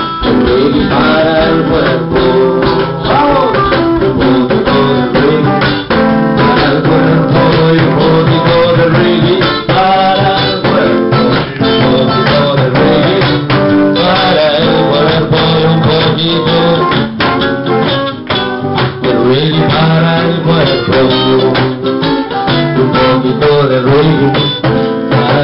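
Live acoustic reggae: a strummed acoustic guitar with congas, a box drum and hand percussion keeping a steady beat, and a man singing.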